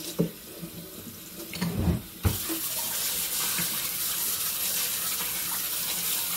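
Kitchen faucet running steadily onto pork rib pieces in a colander in a stainless steel sink, switched on about two seconds in. Before it, a few low knocks as the colander and meat are handled.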